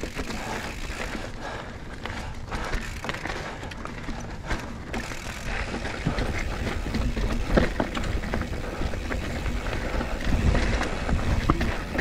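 A mountain bike is being ridden over rough, rocky trail. The tyres rumble over the ground and there are many short clicks, knocks and rattles from the bike, getting a little louder and busier in the second half.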